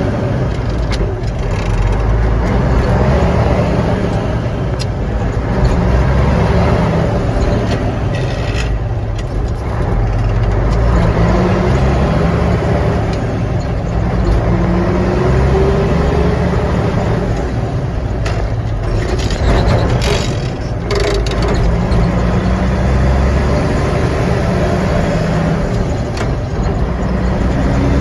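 Mack B-61 truck's diesel engine running on the road, its pitch climbing several times as the truck pulls through the gears, with brief hisses about a third and again two-thirds of the way through. The engine has just had its injection pump repaired.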